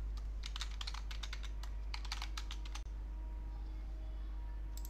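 Computer keyboard typing: a quick run of keystrokes lasting about two and a half seconds, then a couple of clicks near the end, over a steady low electrical hum.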